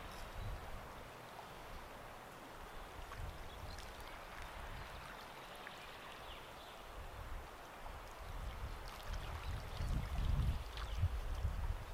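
Small wind-driven waves lapping at the edge of a lake, a soft continuous splashing and gurgling. A low rumble drops away early on and swells again about nine seconds in.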